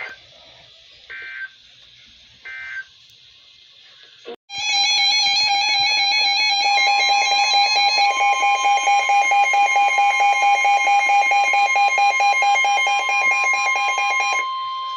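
NOAA Weather Radio alert signalling: three short screeching bursts of SAME digital data tones, then, after a brief dropout about four seconds in, a loud pulsing electronic alarm. A steady single-pitch attention tone joins it a couple of seconds later and carries on after the alarm stops near the end, signalling that a new warning is about to be read.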